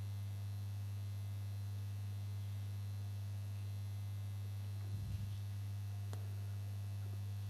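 Steady low electrical hum, the kind of mains hum picked up by a sound system or recording chain.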